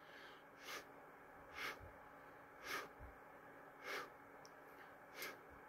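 Faint eating sounds from a man chewing a mouthful of breaded chicken and breathing through his nose: a soft, noisy puff about once a second.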